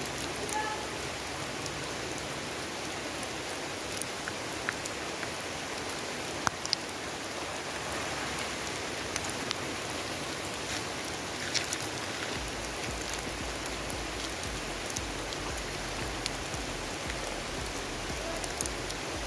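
Steady rain falling, heard as an even hiss with scattered sharp taps of drops.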